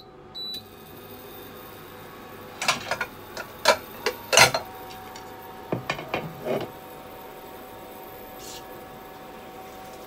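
A single beep from an induction cooker's touch panel as it is switched on, followed by its steady running hum. Over the hum, dishes clatter in two bursts of knocks, the louder bunch near the middle and a shorter one a little later.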